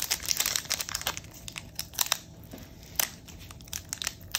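Foil booster-pack wrapper crinkling and tearing as it is handled and opened, in a run of irregular sharp crackles.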